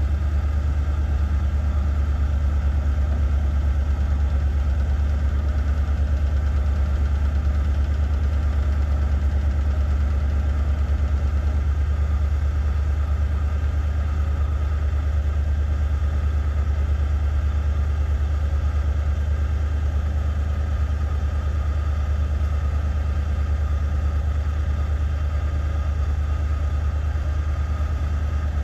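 1974 GMC two-ton grain truck's engine running steadily at idle, a constant low hum, while it powers the hoist that raises and lowers the grain box.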